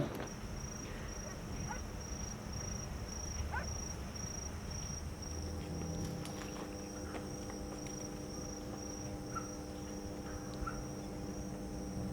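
A cricket chirping in an even, high pulsing rhythm, about two chirps a second, over low background rumble. A steady low hum comes in about halfway through.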